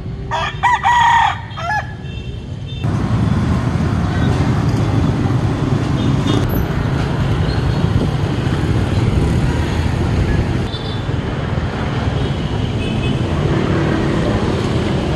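A rooster crows once, a call of about a second and a half with a brief break in it. From about three seconds in, a loud, steady low rumble of vehicle noise takes over.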